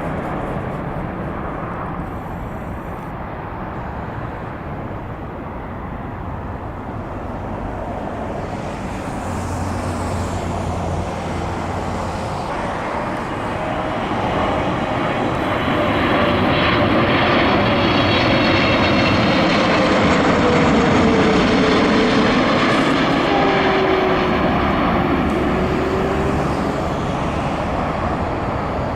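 Jet airliner passing close by: engine noise builds to a loud peak and eases off again, with a whine that slides down in pitch as it goes by.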